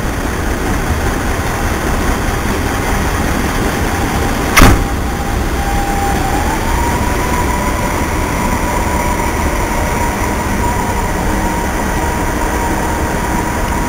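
FS ALn 668 diesel railcar running close by, its engine noise steady, with a whine that steps up in pitch about six seconds in and then holds. A single sharp knock about four and a half seconds in.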